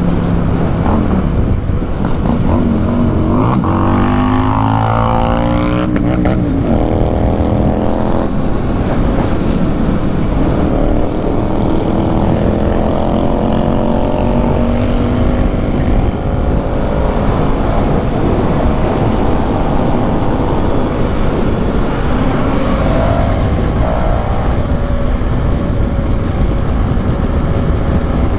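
Motorcycles at highway speed: a KTM Duke 390's single-cylinder engine with wind rush, alongside a loud Suzuki Hayabusa inline-four. The engine notes rise and fall in pitch about four to eight seconds in, then hold steady.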